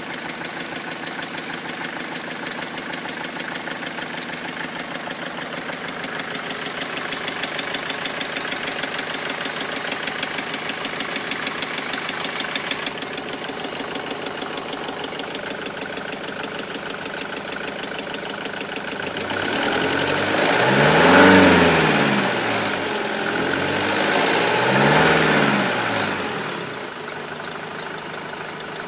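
Mercedes-Benz W124 200D's four-cylinder diesel engine idling, then revved twice about twenty seconds in, each rev rising and falling back before it settles to idle again. The owner presents the engine's sound as a bad sound, without naming the fault.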